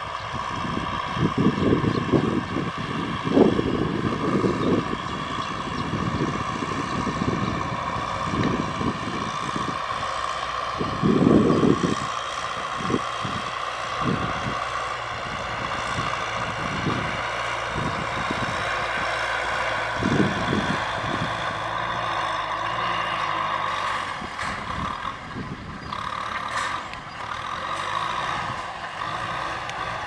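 Kubota M6040SU tractor's diesel engine running steadily under load, pulling a disc plough through dry soil. Irregular low thumps and rumbles come and go over it, mostly in the first half.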